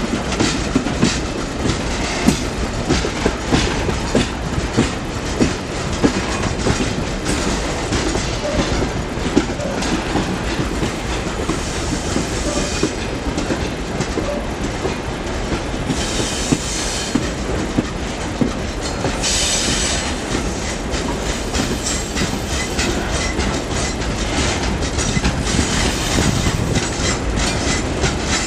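Ore freight train rolling on broad-gauge track, its wagon wheels clicking steadily over the rail joints. Two short bursts of high screeching from the wheels come about 16 and 19 seconds in.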